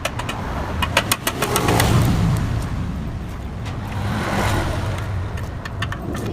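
Motorcycle engine running and revving, swelling up and easing off twice.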